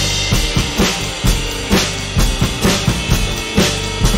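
Drum kit played in a steady groove, with the handmade solid-wood stave snare drum with wooden hoops struck alongside bass drum and cymbals. The strong hits come evenly, about two a second, over a steady cymbal wash.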